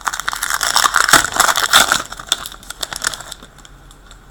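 Crinkling and crackling of a hockey card pack's plastic wrapper being torn open and handled, loudest in the first two seconds and dying away about three seconds in.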